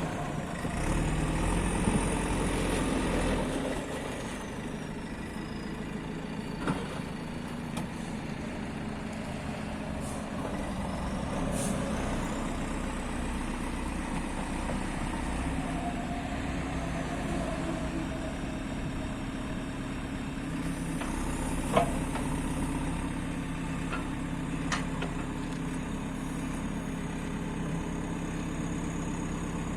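JCB 3CX backhoe loader's diesel engine running steadily, with a few sharp knocks, the loudest about two-thirds of the way through. A faint high whine rises and falls in pitch above it.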